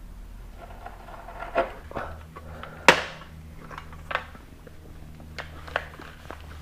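Handling noise: scattered knocks and clicks as things are picked up and moved about on a workbench, the sharpest knock about three seconds in, over a steady low hum.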